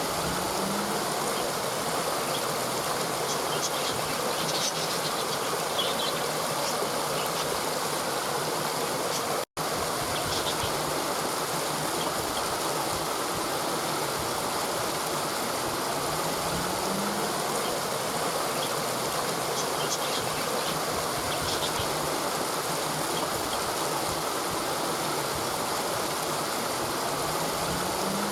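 Waterfall: steady rushing, splashing water with an even, unchanging level. The sound cuts out for an instant about nine seconds in, and faint high chirps come through now and then.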